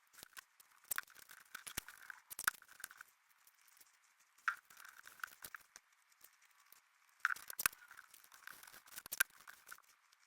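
Small wooden model-kit parts being handled and glued by hand: irregular light clicks and taps with scratchy rustling between them.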